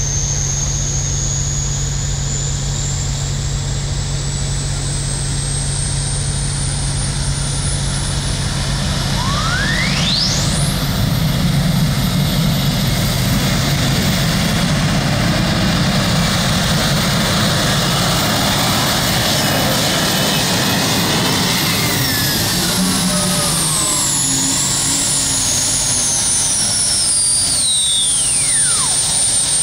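A 5,800 lb modified pulling tractor's engine runs steadily at the line, then about ten seconds in goes to full power as it pulls the sled, with a high whine climbing in pitch. The whine falls away again over the last several seconds as the run ends about 300 feet down the track.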